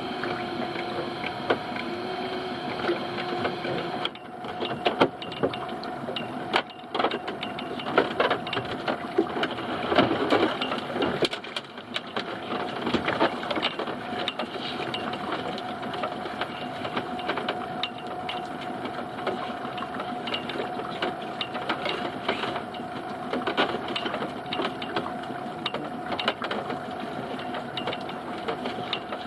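A small fishing boat's motor running steadily, with irregular knocks and rattles of gear being handled while crab pots are hauled.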